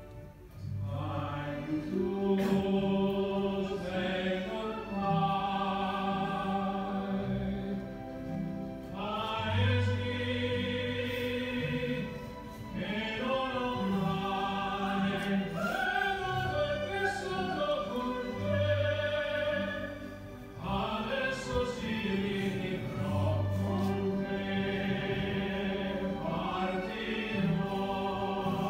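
Sacred music with singing over a sustained, steady-bass accompaniment, moving in slow phrases that pause briefly every several seconds.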